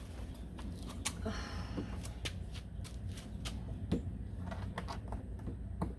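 Plastic hatch trim panel being handled and pressed into place, with scattered light clicks and knocks from the panel and its push clips, and a short rustle about a second in.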